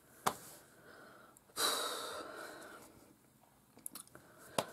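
A woman's deep breath: a loud hiss of air about one and a half seconds in that fades away over about a second. A short click comes near the start, and a few small clicks come near the end.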